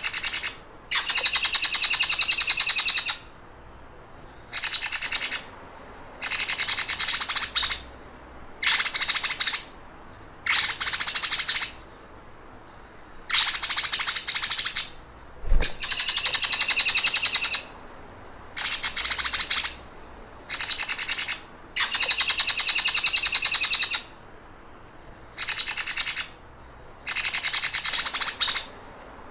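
A songbird singing a rapid, buzzy, machine-like trill, the 'sewing machine' (mesin jahit) song used to train cage birds. About a dozen bursts each last half a second to two seconds with short pauses between them. A single low thump comes about halfway through.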